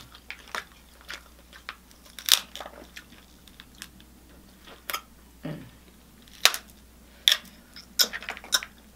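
A person eating seafood boil close to the microphone, mukbang-style: chewing and biting with irregular sharp, crunchy clicks. The loudest click comes a little over two seconds in, and a cluster of them runs from about six and a half seconds on.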